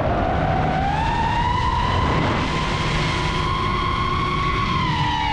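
DJI FPV drone's motors and propellers whining at a steady pitch that climbs about a second in and drops again near the end as the throttle changes, over a low rushing noise.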